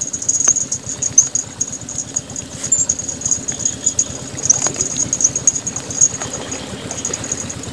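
Spinning fishing reel being cranked to bring in a hooked fish, a steady mechanical whirr that stops near the end. High chirping insects sound above it.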